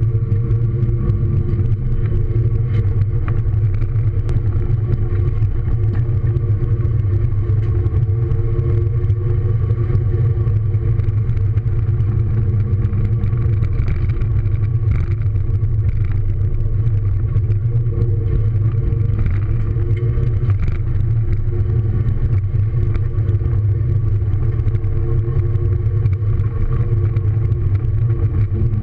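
Car engine and road noise heard from inside the cabin while driving at speed: a steady low drone that barely changes in pitch.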